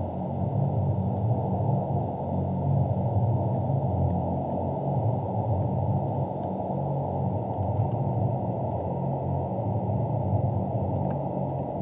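Synthesized deep-space ambience built in Xfer Serum: a steady low hum under a dense wash of muffled noise, with the granulated rain-sample layer shaped to sound like an astronaut's breathing mixed in. A few faint clicks come and go.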